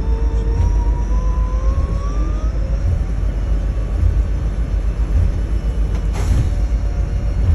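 Airport apron bus driving, its engine and road noise a steady low rumble heard from inside. A whine dips and then rises in pitch over the first two seconds or so, and a short hiss comes about six seconds in.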